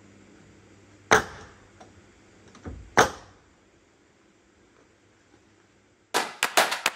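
Nails being driven into wooden board-and-batten siding: two sharp shots about two seconds apart, each with a short ringing tail. Drum-heavy background music starts near the end.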